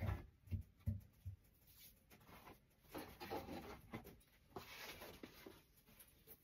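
Hands handling something on a floor: a few soft knocks in the first second or so, then bouts of rubbing and scraping.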